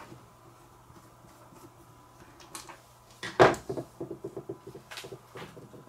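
Light clicks of a screwdriver and wires being handled at a screw terminal block, then about halfway through a sharp knock followed by a quick run of rattling taps and a few more clicks, as a tool and the multimeter's test leads are handled on the workbench.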